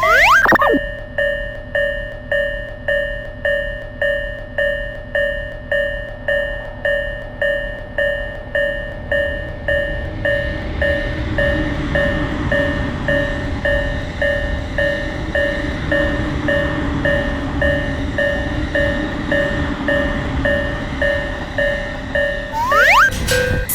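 Japanese level crossing alarm ringing its repeated electronic "kan-kan" bell, about one and a half strokes a second. From about ten seconds in, the rumble of a passing train builds under it. A quick rising whistle-like glide comes at the start and again near the end.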